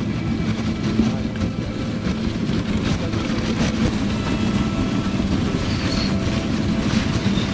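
Dog sled running over packed snow behind its dog team: a steady rumble and rattle from the runners and frame.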